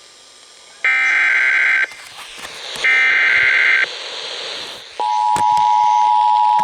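Emergency Alert System SAME header: two one-second bursts of buzzy digital data tones, the last two of the three header bursts. About five seconds in, the steady two-tone EAS attention signal begins and holds.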